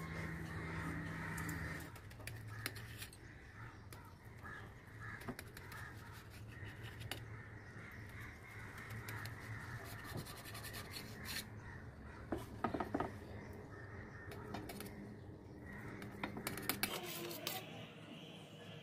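Kitchen knife cutting through a block of homemade paneer, clicking and scraping against the steel plate beneath it, with a few sharper knocks from the blade on the metal. A low hum stops about two seconds in.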